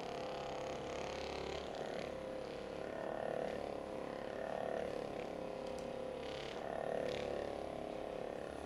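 Handheld percussion massage gun buzzing as it is pressed into the lower back and buttock muscles, its loudness and pitch swelling and easing several times as the pressure and spot change.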